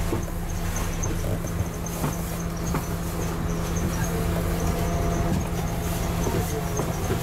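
Double-decker bus's diesel engine idling steadily while the bus stands at a stop, heard from inside the bus.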